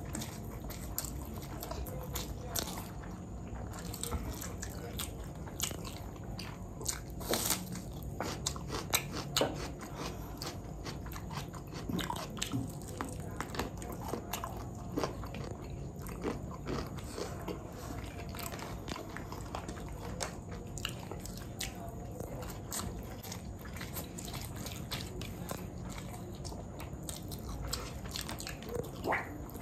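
Close-up eating sounds from a meal of veg fried rice and chicken rezala: steady chewing with irregular crisp crunches and small clicks, a few louder bites about 7 to 9 seconds in and near the end.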